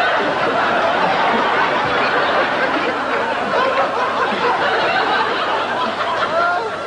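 A large audience laughing together, many voices at once, easing a little near the end.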